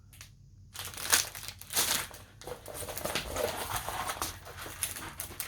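Plastic packaging of a diamond painting kit crinkling and rustling as it is handled, starting about three-quarters of a second in and going on irregularly.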